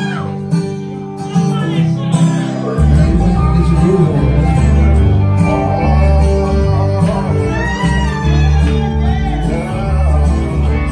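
Loud music played through PA speakers, with a deep bass line that comes in about three seconds in.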